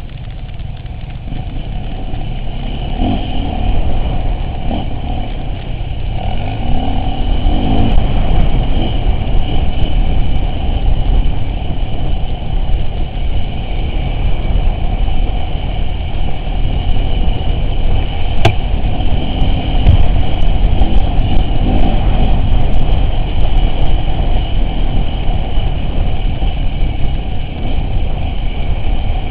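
Off-road vehicle engine running while under way, a loud, steady low rumble that builds over the first few seconds. There is one sharp click about halfway through.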